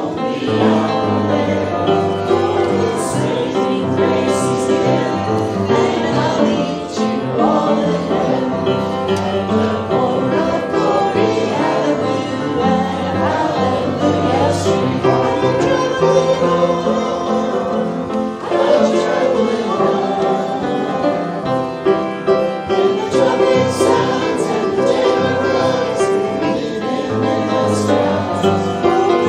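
Church worship music: voices singing a worship song with instrumental accompaniment, continuous throughout.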